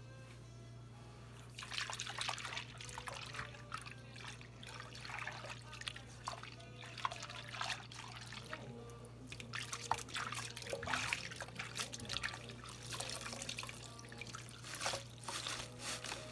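Wet kitchen sponges soaked in soapy water being squeezed and pressed by hand: irregular squishing, sloshing and trickling water, starting a couple of seconds in.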